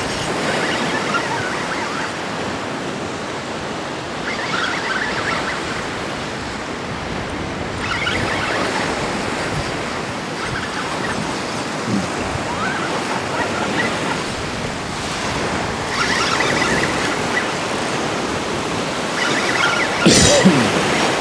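Gulf of Mexico surf washing onto the beach, a steady rush that swells every few seconds as waves come in.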